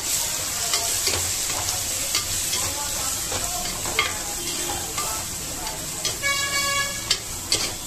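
Onion, tomato and spice masala sizzling in oil in a clay pot while a metal spatula stirs it, scraping and clicking against the pot. About six seconds in, a short horn-like tone sounds for under a second.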